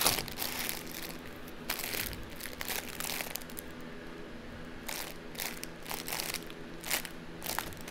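Clear plastic bag of packaged diamond-painting drills crinkling as it is handled and shifted, in scattered short rustles and crackles.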